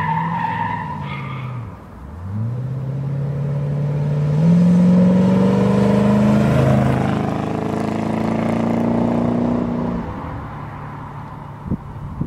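Chevrolet C3 Corvette's V8 accelerating as the car drives past: the engine note dips briefly, then climbs in pitch through a gear change. It is loudest about five seconds in and fades away after about ten seconds.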